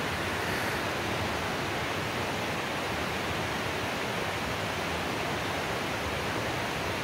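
Small waterfall rushing with a steady, even noise of falling water.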